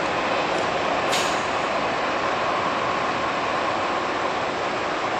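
Jet engines of a Boeing 747-400 freighter running steadily as it taxis and turns onto the runway, a continuous broad rush of noise, with one short, sharp hiss about a second in.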